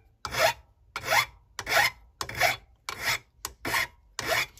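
Hand file scraping across a metal bolster pin in about seven even strokes, roughly one every two-thirds of a second. The filing is taking off the sharp burr left around a freshly drilled hole.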